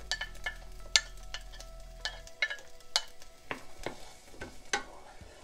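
Diced onion being scraped off a plate into a hot oiled frying pan: irregular sharp clicks and taps against the plate and pan, over a light frying crackle.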